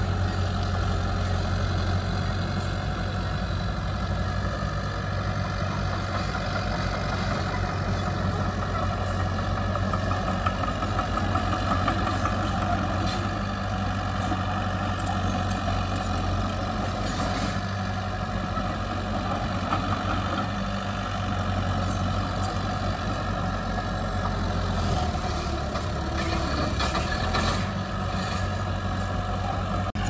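Heavy diesel earthmoving machinery running steadily, with light clicks and clanks scattered through.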